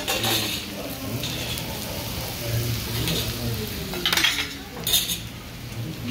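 Stainless-steel bowls, trays and metal utensils clinking and clattering, with sharp clinks at the start and again about four and five seconds in.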